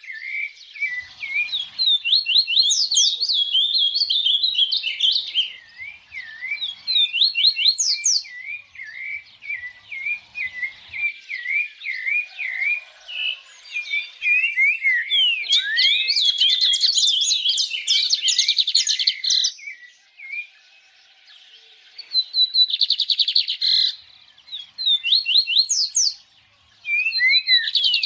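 A songbird singing a long, varied song of quick slurred chirps and rapid trills, with a short break about twenty seconds in.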